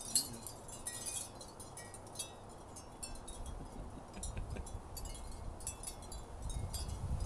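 Wind chimes tinkling in the breeze, many short, scattered ringing notes, over a low rumble of wind on the microphone.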